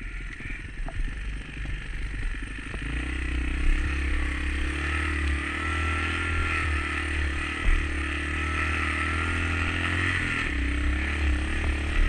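Dirt-bike engine running while the bike rides through deep snow. It is lower for the first few seconds, then held at a steadier, higher throttle from about three seconds in, its pitch wavering a little. Two short sharp knocks stand out over it.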